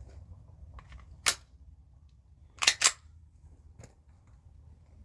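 Sharp metallic clicks from handling a Canik TP9SA Mod2 9mm pistol: one click about a second in, then a quick double click a little past the middle and a faint click after it.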